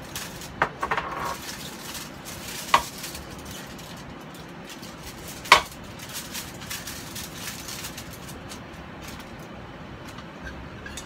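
A few sharp clinks of kitchen containers and utensils being handled and set down, the loudest about five and a half seconds in, over steady low background noise.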